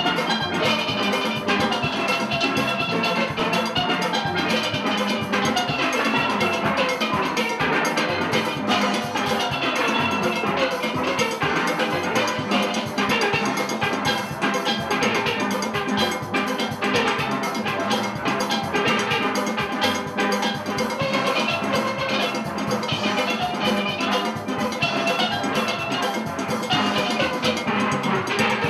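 A full steel orchestra of many steelpans playing a fast calypso arrangement, with a drum kit and percussion keeping the beat under the rolled and struck pan notes.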